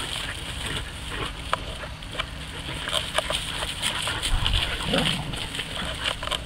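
Large dogs running and playing through dry stubble: scattered thuds and crunches of their paws, over a low steady rumble of wind on the microphone.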